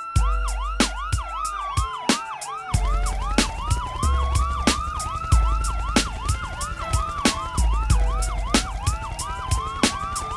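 Hip hop beat intro with a police-style siren sample: a slow wail rising and falling over a faster yelping warble, on top of steady drum hits, with deep bass coming in about three seconds in.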